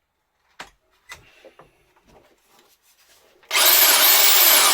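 A few small clicks and knocks, then about three and a half seconds in a Milwaukee PH26 TX 800-watt SDS hammer drill switches on. It spins up with a brief rising whine and runs loud and steady.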